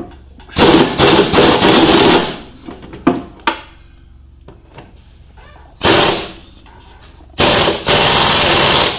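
AirCat pneumatic impact wrench hammering in three bursts: a long one just after the start, a short one about six seconds in and another long one near the end, with a couple of sharp knocks between. It is working at bolts caked in old undercoating.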